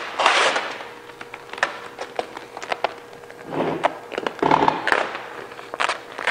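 Gold chrome wrap vinyl being lifted and stretched back over a plastic grille: a run of sharp crackles and snaps, with two longer rasping peels, one at the start and one from about three and a half to five seconds in.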